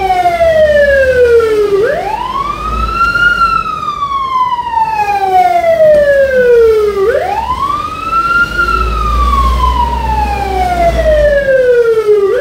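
Fire-service vehicle's siren sounding a slow wail: each cycle climbs quickly to a high pitch, then falls slowly over several seconds, about once every five seconds, with a low engine rumble underneath.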